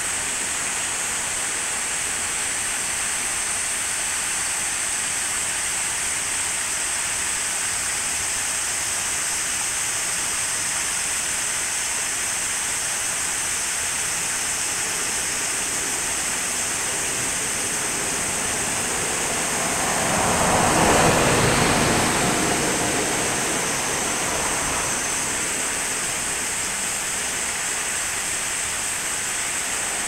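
Water pouring over a series of low stepped weirs in a small river, a steady rushing. About twenty seconds in, a louder whoosh swells and fades over a few seconds.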